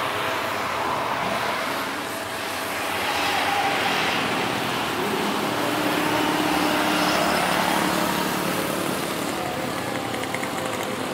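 Jet airliner's engines, a steady rush that swells to its loudest about seven seconds in and then eases off as the aircraft passes.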